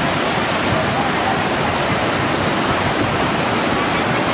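Muddy floodwater rushing in a swollen river in full spate: a steady, even rush of turbulent water.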